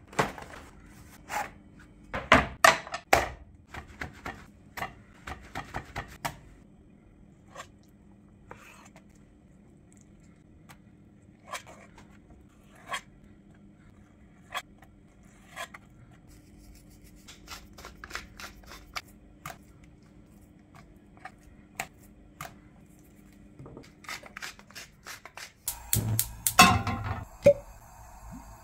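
Kitchen knife work: a leather knife roll being unrolled and handled with a run of sharp clicks and knocks, then a knife slicing raw fish fillets on a bamboo cutting board in sparse single taps a second or two apart. Near the end comes a loud clatter of metal cookware on the gas hob.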